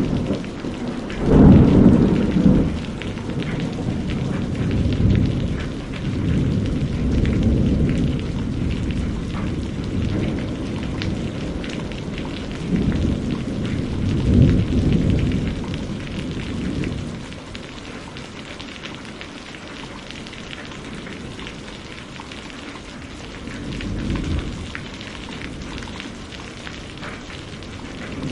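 Heavy rain falling steadily, with thunder rumbling again and again through it. The loudest roll comes about a second and a half in, more rolls follow around the middle, and the storm quietens in the last third except for one weaker rumble near the end.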